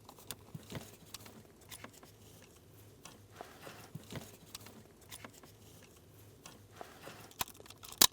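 Scattered light clicks and taps from handling the ignition key, lock cylinder and plastic ignition switch on a Chrysler Sebring steering column while lining up the switch, with one sharp click near the end.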